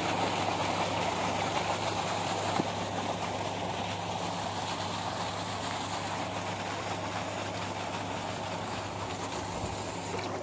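A steady mechanical drone, like a motor running, with a constant low hum under an even hiss.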